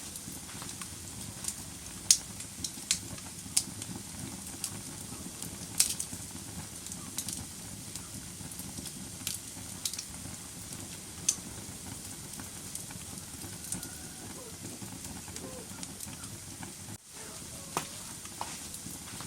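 Wood fire burning in a fireplace: a steady low rush of flame with irregular sharp crackles and pops, a few much louder than the rest. The sound briefly cuts out about seventeen seconds in.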